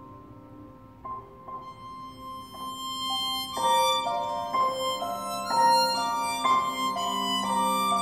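Live ensemble music: a Yamaha grand piano plays quiet, spaced notes over a steady drone. About two seconds in, a hurdy-gurdy melody with a bright, buzzing, bowed tone joins, and the music grows much louder a second or so later.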